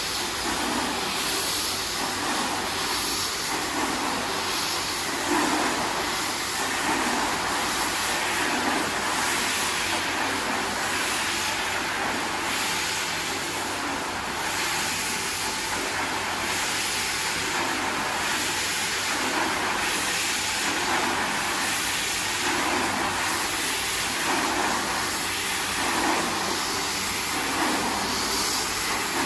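Rotary carpet-scrubbing machine running, its electric motor driving a brush pad that swishes through soapy foam on a rug. The swish swells and eases in a steady rhythm with each back-and-forth sweep.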